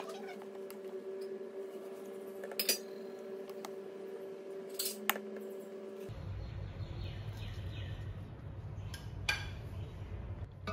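A plastic rice paddle scooping sticky rice and knocking against a rice cooker's inner pot, with a few sharp clicks over a steady hum. About six seconds in, the background changes to a low rumble with an occasional click.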